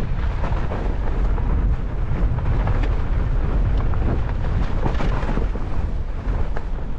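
A fat bike ridden fast over a snowy trail: wind rumbles steadily on the camera microphone, with scattered clicks and knocks from the bike.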